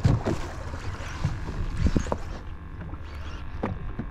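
Water slapping against the hull of a small fishing boat in rough water: a steady low rumble broken by several sudden splashes.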